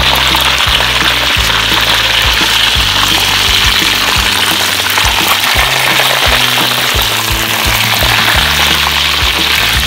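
Hot oil sizzling steadily around a whole fish deep-frying in a wok, a dense crackling hiss, with background music with a steady beat playing along.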